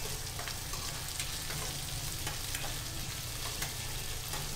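Small onions, curry leaves and fenugreek seeds sizzling in sesame oil in a pan, stirred with a metal spatula: a steady sizzle with light clicks and scrapes of the spatula now and then.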